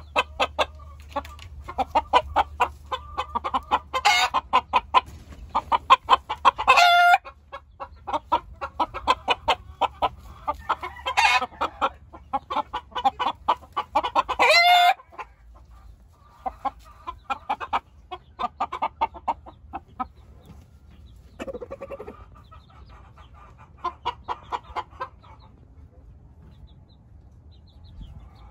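Chickens clucking in quick runs of short notes. Twice the clucking builds to a loud, drawn-out call that cuts off sharply, about 7 and 15 seconds in. After that the clucking goes on more sparsely and quietly.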